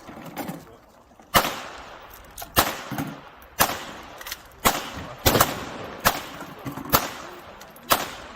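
Gunshots from firearms at an outdoor shooting range: about eight loud single shots, roughly one a second at an uneven pace, each trailing off in an echo, with a few fainter shots in between.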